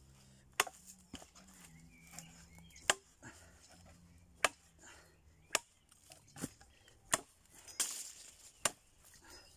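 Machete chopping into a wooden branch, eight sharp chops at uneven intervals of about a second.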